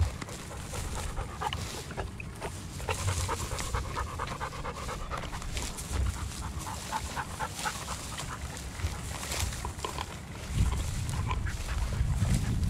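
Pointing dog panting as it works close by through dry grass.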